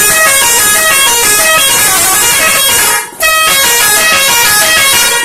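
Telolet horn on a Toyota Kijang playing a fast tune of short, changing horn notes, loud, with a brief break about three seconds in.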